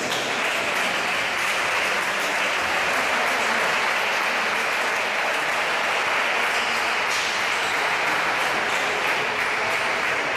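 Steady applause, many hands clapping at once.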